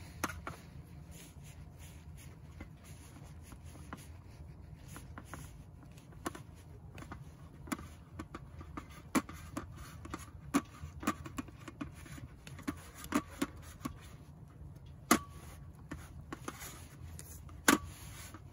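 Scattered light taps and clicks of a kitchen utensil against a dish while milk is put onto the top crust of an apple pie. A few of the clicks ring briefly, and a low steady hum runs underneath.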